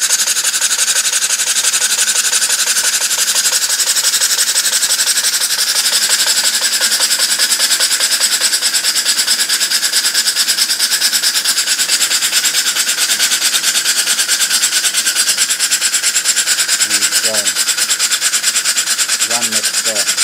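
Home-built model stationary steam engine running on compressed air: a loud, steady hiss of exhaust air pulsing rapidly with each stroke. The owner calls it a lot of exhaust noise and judges the exhaust port too small.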